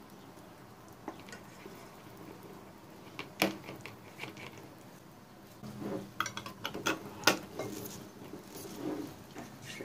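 Clinks and knocks of kitchen utensils and a glass jar as jam is ladled into the jar through a funnel and the jar is closed: a single sharp click about a third of the way in, then a busy run of clinks, loudest around seven seconds in, followed by soft rubbing of a cloth.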